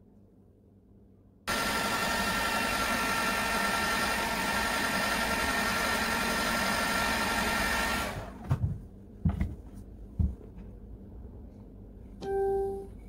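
Handheld heat gun blowing steadily, its fan motor giving a steady whine over a rush of air, aimed at freshly painted sneaker leather to dry the paint, then switched off sharply. A few low knocks follow, and a brief tone sounds near the end.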